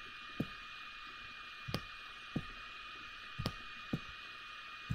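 About six short computer mouse clicks at uneven intervals, over a steady hiss of microphone noise with two faint high steady tones.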